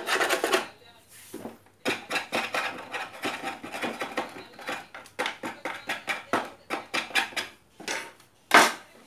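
A screwdriver clicking and scraping against the plastic back casing of an old Panasonic radio cassette recorder as the back cover is pried loose: a quick, uneven run of clicks and scrapes, with one louder knock near the end.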